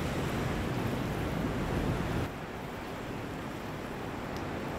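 Ocean surf washing against the rocks, with wind on the microphone; the wash drops to a quieter level about two seconds in.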